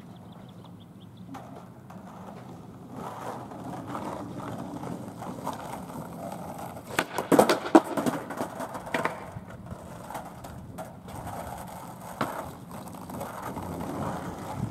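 Skateboard wheels rolling over rough asphalt, with a cluster of sharp clacks and knocks about halfway through.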